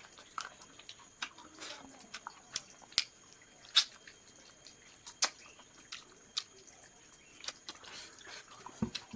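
Close-miked eating sounds of someone chewing chicken: scattered wet mouth clicks and smacks at an irregular pace, one louder click about four seconds in.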